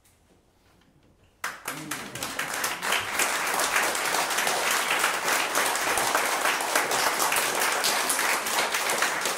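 About a second and a half of near quiet, then a small audience breaks suddenly into applause, many hands clapping steadily.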